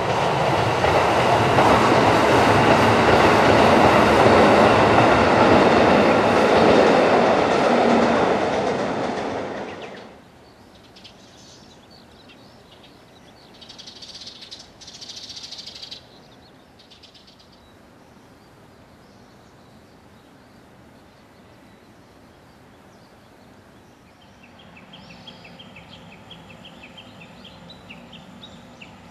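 A diesel train runs past loudly, its wheels clattering on the rails. About ten seconds in the sound cuts off abruptly to a quiet outdoor background with faint high chirps.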